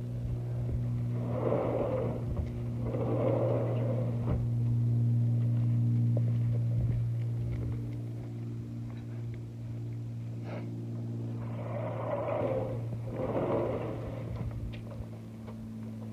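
A steady low mechanical hum, like an idling engine or motor, holds one pitch throughout. Two pairs of brief, muffled sounds rise over it, one pair early and one pair past the middle.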